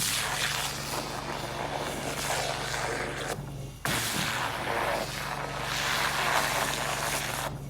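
Pressure washer jet blasting water into garden soil, in two long bursts with a brief stop a little over three seconds in, over the machine's steady hum.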